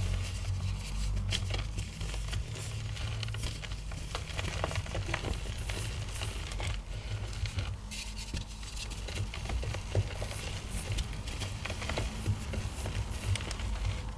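Blocks of gym chalk crushed and crumbled in the hands: a dense, irregular run of small crunching crackles.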